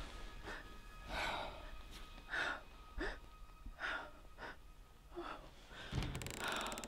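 A woman breathing in short, shaky gasps, about one a second, in distress. A low rumble with a fine rapid buzz comes in near the end.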